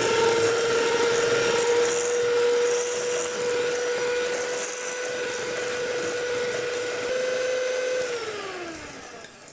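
Ikon electric hand mixer running, its beaters whisking eggs and sugar in a stainless steel bowl: a steady motor whine with beater whir, steady in pitch. About eight seconds in it winds down, the pitch falling as it stops.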